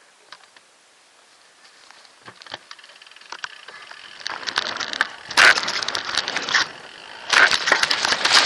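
Haro Extreme X2 mountain bike ridden downhill with a handheld camcorder: scattered clicks and rattles at first, then rushing wind and tyre noise with rattling, in two loud surges about four and a half and seven and a half seconds in as the bike picks up speed on the trail and wooden ramp.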